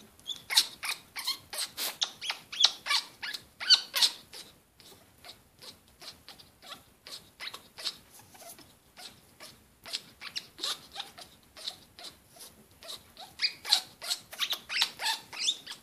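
Congo African grey parrot making rapid, repeated short clicking, huffing sounds, about three a second, fainter in the middle stretch and stronger again near the end: a hormonal, in-heat display.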